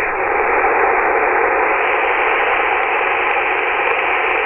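Steady CB radio static hiss through the radio's speaker, with a faint steady tone in it, as a breaking station's transmission cuts out. The operators suspect a high SWR on his antenna.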